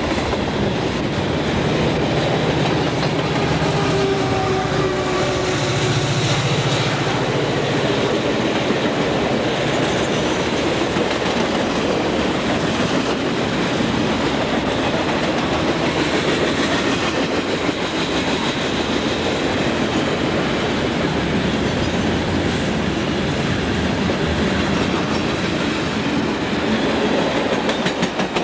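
Freight train's cars rolling past, a steady din of steel wheels running on the rails.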